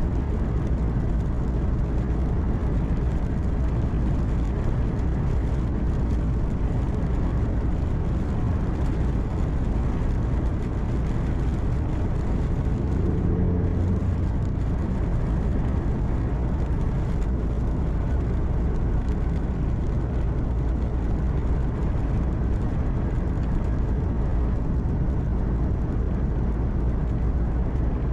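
Steady engine hum and road noise inside a truck cab at highway speed, with a brief low swell about halfway through.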